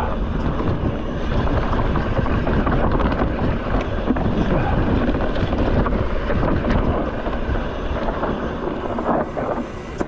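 Mountain bike riding down a dirt singletrack: wind buffets the microphone over the tyres crunching on dry dirt and leaves, with scattered short rattles and clatters of the bike over bumps.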